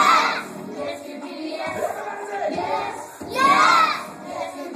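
Young children singing an action song along with music, the voices loudest in two bursts, at the start and about three and a half seconds in.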